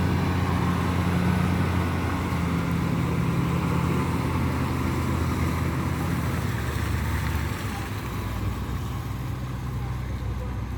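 An engine running steadily with a low drone; its tone shifts slightly about two seconds in and it eases off a little in the second half.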